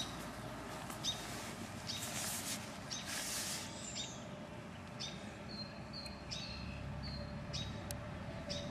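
A bird chirping repeatedly, short high calls about once a second, with two brief rustling noises around two and three seconds in.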